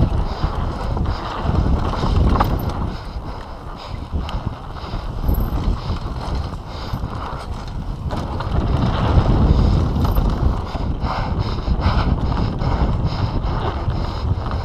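Mountain bike descending a rough dirt trail at speed: the bike clattering and rattling over bumps, with tyre noise on dirt and wind buffeting the handlebar-mounted camera's microphone.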